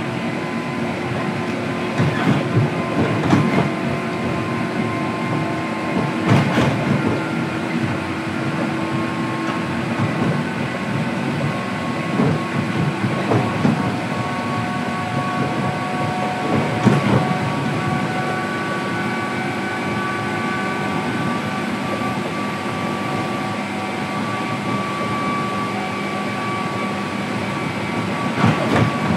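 Running noise inside the motor car of a JR 103 series electric train under way: a steady rumble with a whine from the traction motors and gears, which edges up in pitch partway through. The wheels click and knock over rail joints now and then.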